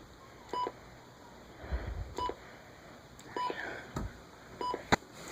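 Short electronic key beeps from a weather alert radio receiver as its buttons are pressed to scroll through stored alerts: about one beep a second, some doubled, with a couple of sharp clicks in between.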